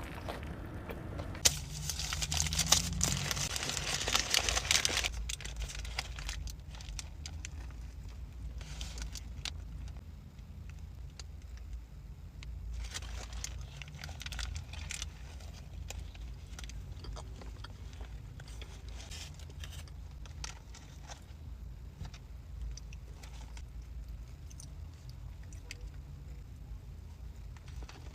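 Close-miked mukbang eating sounds from burger and fries: a loud stretch of crinkling and crunching a couple of seconds in, then scattered crunchy bites and chewing over a steady low hum.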